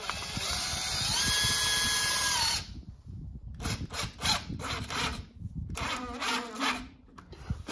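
Power drill countersinking a screw hole: the motor speeds up just after it starts, runs steadily for about two and a half seconds, then stops. Several shorter, uneven bursts of drilling follow.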